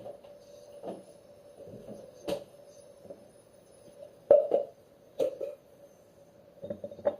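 A handful of separate sharp knocks and clatters of objects being handled, the loudest about four seconds in, over a steady faint hum.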